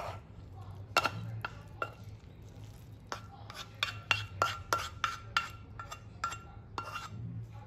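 Wooden spatula and chopsticks tapping and scraping against a ceramic dish while noodles and cabbage are tossed: a string of sharp clacks, each with a brief ring, coming faster in the second half.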